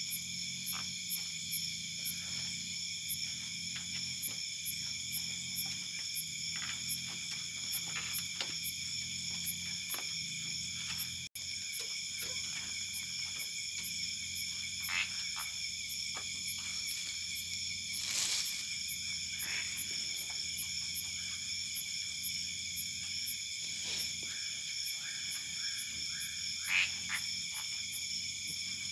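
Night chorus of insects and frogs: steady high-pitched trilling with a fast ticking pulse, broken by many short sharp chirps and clicks, with a louder burst about two-thirds of the way through.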